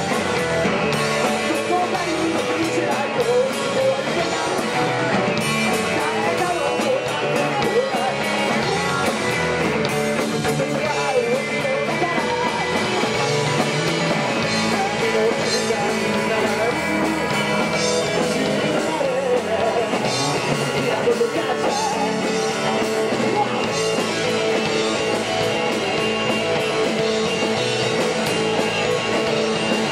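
Rock band playing live: electric guitar, bass guitar and drums, with a voice singing through the PA.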